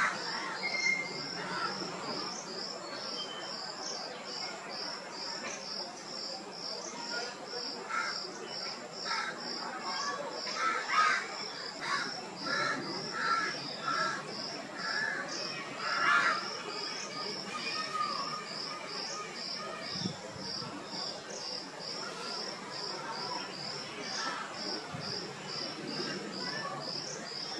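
An insect, cricket-like, chirping steadily in a high, even pulse about two to three times a second. Short chirping calls from other small animals break in now and then, mostly around the middle.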